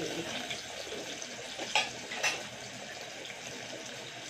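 Breaded saba banana peels deep-frying in a small pot of hot oil: a steady sizzle and crackle. A metal spoon knocks sharply against the pot twice, about two seconds in.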